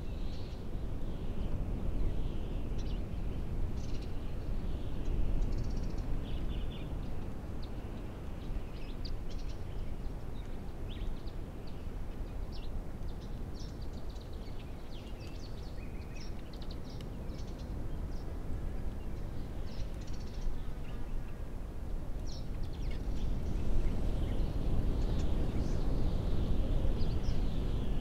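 Small birds chirping and calling on and off over a low, steady rush of wind, which grows louder near the end.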